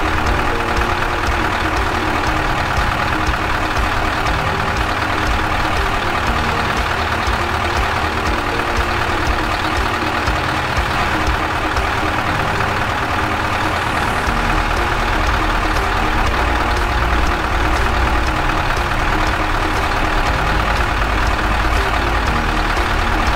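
Scania 164 580's V8 diesel engine idling steadily.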